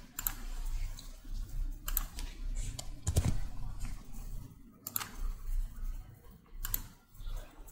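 Computer keyboard and mouse clicks: a scattering of separate, irregular taps while a value is typed into a form field.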